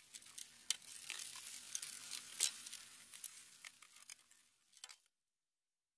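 Crackling, fizzing sound effect of an animated logo outro: a quiet hiss full of sharp clicks that swells to its loudest about two and a half seconds in, thins out, then cuts off abruptly about five seconds in.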